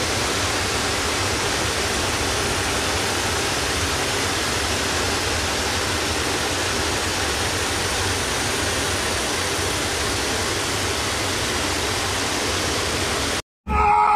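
Steady, even rushing noise, a hiss with no calls, voices or distinct events in it, that cuts off abruptly near the end.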